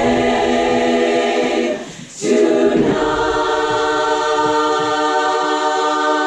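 Women's choir singing a long held chord that breaks off about two seconds in, then holding a second long chord.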